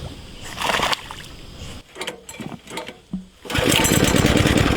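A short noisy splash-like burst, then a small engine running with a steady, even pulse, starting abruptly about three and a half seconds in.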